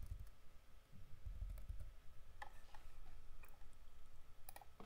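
Faint, irregular clicks from a computer keyboard and mouse, a handful of them spread across the few seconds, over a low rumble.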